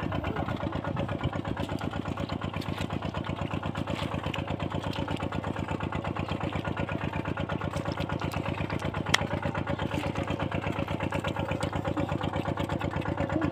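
Small engine driving a water pump, running steadily with a fast, even beat. A single sharp click about nine seconds in.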